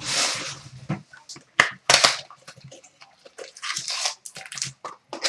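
Foil wrappers of hockey card packs being torn open and crinkled, with sharp snaps and rustling as the cards are handled.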